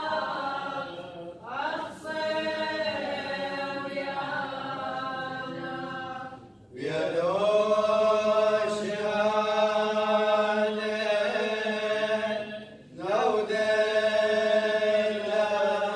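Choir singing Assyrian Church of the East liturgical chant in long held notes, breaking off briefly three times between phrases.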